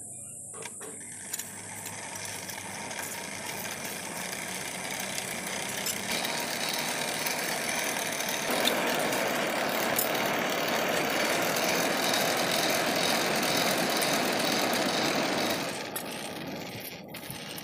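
Forge blower forcing air into a charcoal fire: a steady rushing blast that builds over the first several seconds, gets louder about eight seconds in, and drops off near the end as the air is cut.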